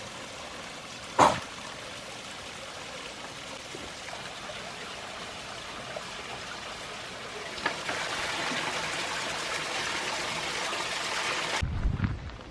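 Small waterfall splashing and trickling: a steady rush of falling water, growing louder about two thirds of the way through. There is a single sharp click about a second in, and the water sound cuts off suddenly just before the end.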